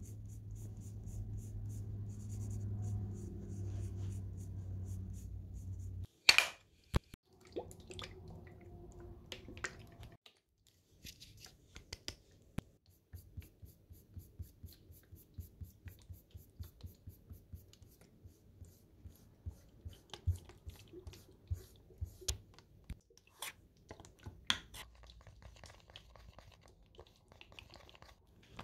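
Hands working with paper in paper-doll crafting: small scratching and tapping strokes, several a second through the latter part, with a sharp click about six seconds in. A low steady hum runs under the first six seconds.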